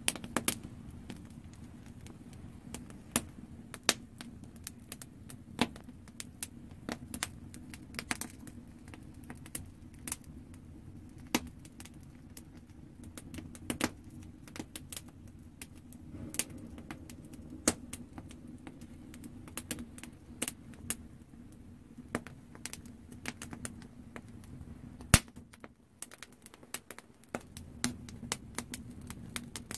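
Wood campfire crackling: frequent irregular sharp pops and snaps over a steady low rush, with one especially loud pop a little before the end.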